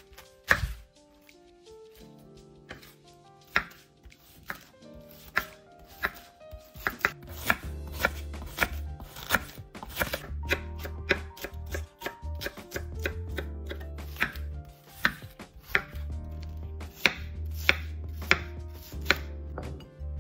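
Knife chopping vegetables on a cutting board: sharp strokes, a few at a time at first, then quicker and more regular, about two or three a second, from a few seconds in.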